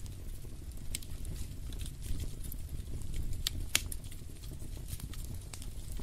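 Wood fire in a fireplace crackling: irregular sharp pops and snaps over a low steady rumble, the loudest pop a little past halfway.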